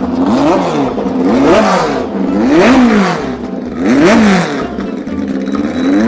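Air-cooled flat-four engine of a drag-racing Volkswagen Beetle with a long straight exhaust pipe, revved in about four blips, its pitch rising and falling each time.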